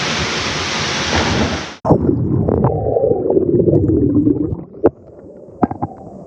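Waterfall roaring, then about two seconds in it cuts off abruptly into muffled, low underwater gurgling and bubbling with a few sharp clicks, as the microphone goes under the water of the plunge pool. The gurgling fades lower near the end.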